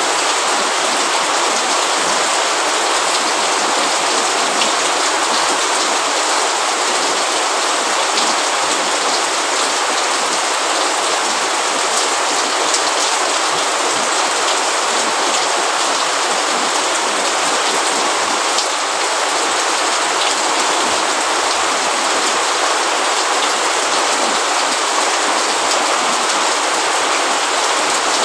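Steady, even rain, a continuous hiss with scattered individual drop ticks.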